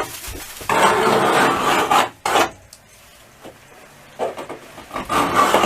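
Hand deburring tool scraping along the freshly cut sheet-metal edge of a van body opening, in rasping strokes with a quiet pause in the middle.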